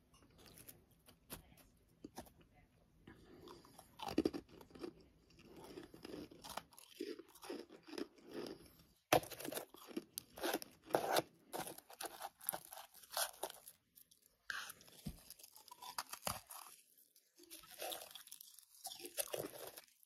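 Close-up crunching of freezer frost and humidifier frost: chewing of the frost and fingers digging through it in a bowl, in many irregular sharp crunches.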